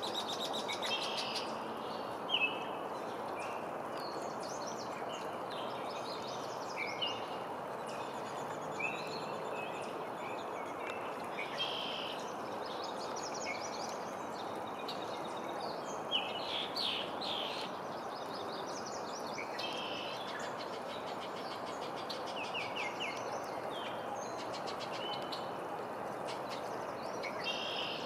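Songbirds singing and calling: short chirps and quick trills every second or so, over a steady background rush.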